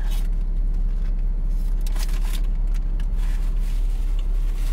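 Steady low rumble of a car idling inside its cabin, with a few brief clicks and rustles on top.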